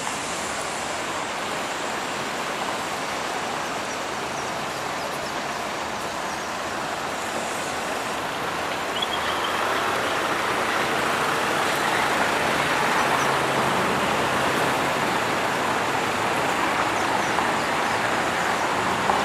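Road traffic noise from cars on a city street: a steady rush that swells a little about halfway through, as if a vehicle is passing.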